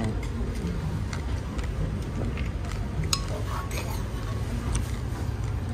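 Restaurant dining-room ambience: a steady low hum with faint, indistinct voices and a few light clicks of tableware.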